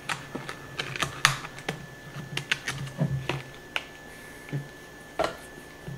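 Clear plastic packaging being handled, crinkling with irregular sharp clicks.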